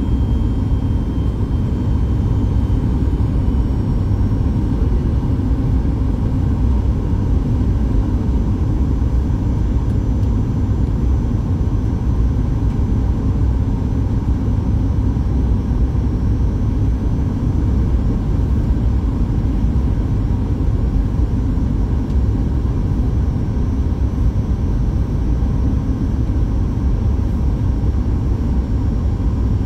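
Steady cabin noise inside a Boeing 737 MAX 8 in flight, heard from a window seat beside the wing: the CFM LEAP-1B engine and rushing air make an even, low rumble.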